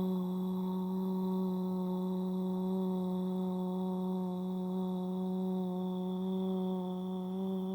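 Emergency Alert System attention tone: a steady, low, buzzing electronic tone held unbroken, with no speech over it.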